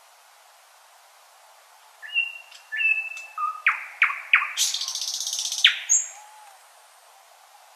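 Nightingale singing one phrase, starting about two seconds in. It opens with a few clear whistled notes, then goes into a run of quick downward-sweeping notes and a fast buzzing trill, and ends on a short high note.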